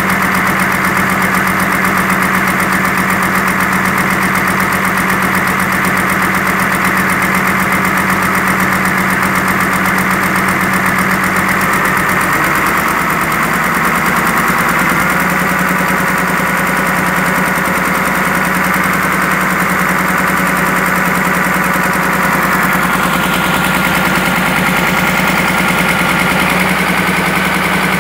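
Komatsu PC200-7 excavator's diesel engine running steadily while warming up, its speed held by hand at the fuel-pump throttle linkage because the faulty governor motor, which made the revs hunt up and down, is unhooked. The engine speed rises slightly about halfway through.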